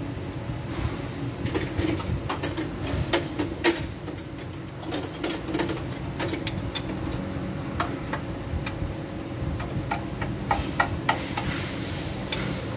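Irregular sharp metallic clicks and ticks of a wrench at work on the automatic transmission pan bolts, in two clusters, over a steady low hum.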